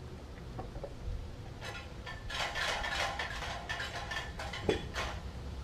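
Wind rumbling on the microphone. A couple of seconds of quick rattling and rustling come in the middle as a small bass is unhooked by hand, followed by a single knock.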